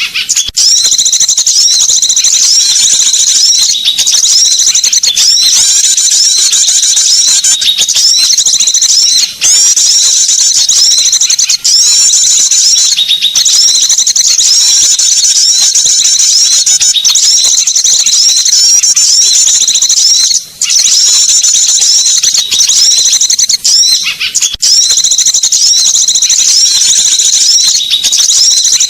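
Bird-lure recording of small songbirds: loud, dense, high-pitched chirping and trilling in quick repeating phrases, almost without a break.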